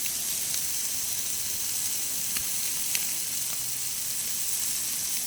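Deboned chicken thighs sizzling steadily on a hot grill, with a few faint pops and crackles.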